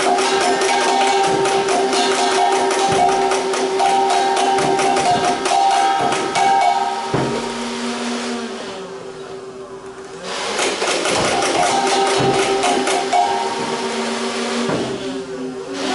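Nerf Rival Nemesis motorized flywheel blaster firing in rapid full-auto, its motors whining steadily under a fast stream of shot clicks. About halfway through, the firing stops and the whine dies away, then the motors spin up and the rapid firing resumes.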